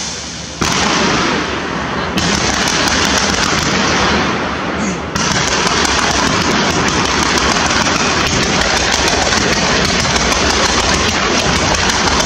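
Fireworks going off: a steady rush of spraying fountains, jumping louder about half a second in and again at about two and five seconds, then dense, rapid crackling and popping.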